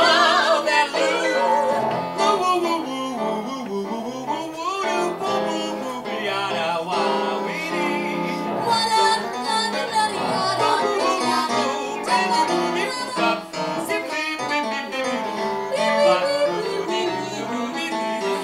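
Live song: a woman singing, accompanied on electronic keyboard.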